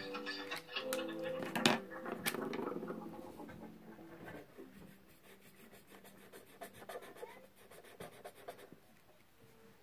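Felt-tip marker scratching on paper in short colouring strokes, faint, with a couple of sharp clicks about two seconds in. Music plays over the first couple of seconds and then stops.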